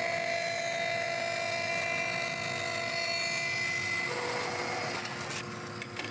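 Laguna bandsaw running steadily, its blade cutting through a glued-up mahogany box to separate the lid. The cut ends about five seconds in, followed by a few light clicks.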